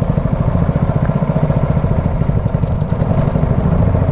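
Small boat engine running steadily at low speed, with an even, rapid putter.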